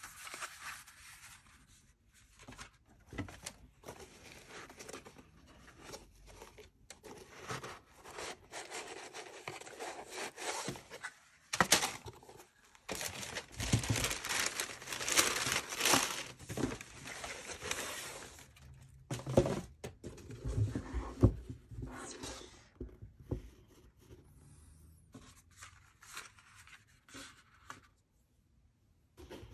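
Sneaker-box packaging being handled close up: tissue paper rustling and crinkling, most densely in the middle, along with the cardboard shoebox and a kraft cardboard lace pack, and a few thumps.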